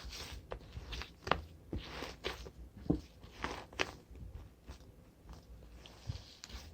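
Cream slime being handled, pressed and stretched by hand, giving irregular soft clicks and sticky squishing sounds that thin out toward the end.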